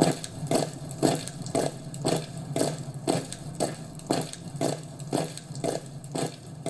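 Steady, evenly paced footsteps, about two steps a second, over a low steady hum.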